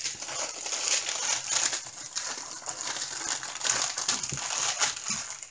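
Clear plastic bag crinkling as hands handle and move it, an irregular crackle throughout.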